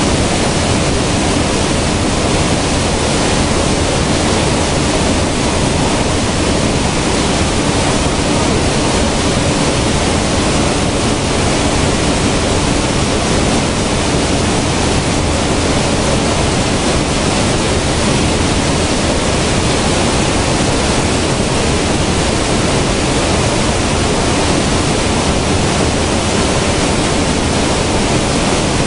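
Grain-cleaning plant machinery running: a loud, steady, even hiss and rush with a faint low hum underneath and no breaks.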